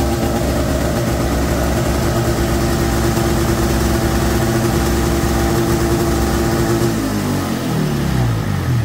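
1992 Ski-Doo Mach 1 snowmobile's two-stroke engine running at a fast idle, just started after sitting about ten years; its idle is set too high. About seven seconds in the engine winds down, its pitch falling steadily.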